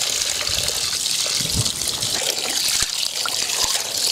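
A steady stream of water poured into a steel bowl of chopped chicken, splashing over the meat as hands rinse and turn the pieces.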